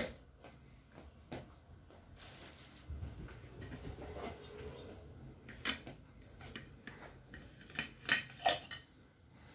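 Handling noises: rubbing and rustling, then several sharp plastic clicks and knocks, the loudest clustered near the end, as a plastic water bottle is handled over a plastic footbath basin.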